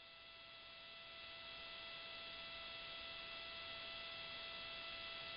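Faint steady hiss with a few thin steady hum tones from the launch commentary audio feed's open line, getting slightly louder as it goes.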